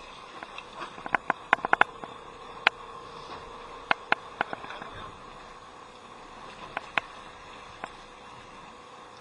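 A series of sharp clicks and knocks, a quick cluster of them about a second in and a few scattered ones later, over a steady hum.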